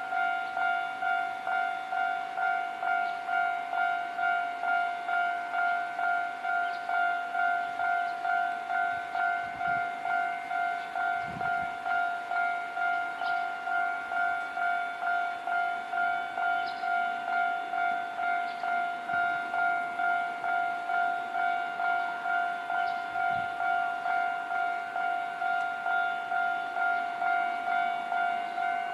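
Japanese railway level-crossing warning bell ringing without a break, a clanging tone repeating about twice a second.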